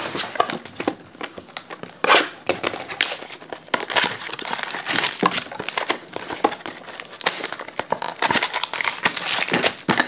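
Foil wrapper of a trading-card pack crinkling and being torn open by hand, in a dense run of irregular crackles.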